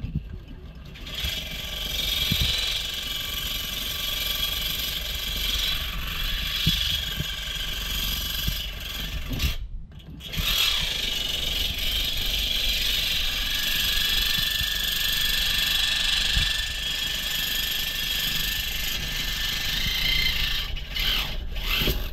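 Ridgid reciprocating saw cutting through a seized steel control arm bolt. It stops briefly about ten seconds in, then cuts on and stops near the end.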